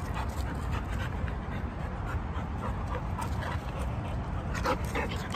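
Dog panting, with a few short whimpers about three to five seconds in.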